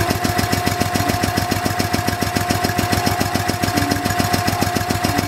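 Small OHV single-cylinder petrol engine being cranked over, turning at an even pace of about seven or eight beats a second, with a steady whine over it. It is running on 70% isopropyl alcohol and does not catch: the alcohol is drawn into the engine but will not fire.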